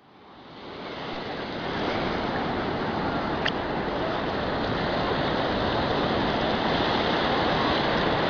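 Steady rush of sea surf, fading in over the first two seconds, with one brief click about three and a half seconds in.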